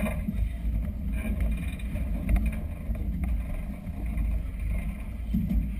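Uneven low rumble of wind buffeting a camera microphone over open, choppy river water, with a faint wash of waves higher up.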